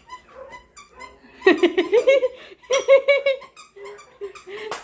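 Crocodile toy squeaking in two quick runs of short, bending squeaks, the first about one and a half seconds in and the second just under a second later.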